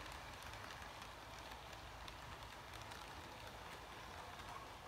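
Model railroad freight cars rolling along the track: a faint, steady rolling rattle with many small, irregular clicks from the wheels on the rails.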